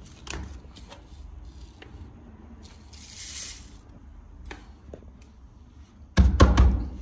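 Light rustling and scattered small clicks as powdered eggshell is sprinkled by hand over the soil and leaves of a potted lemon tree, with a brief hiss about three seconds in. Near the end comes a loud thump and rattle.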